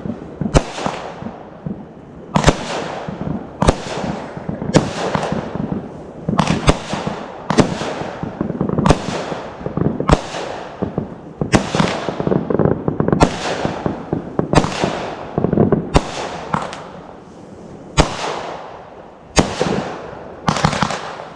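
Fireworks finale: aerial shells bursting in quick succession, a sharp bang about once a second, each trailing off, with a continuous crackle between them.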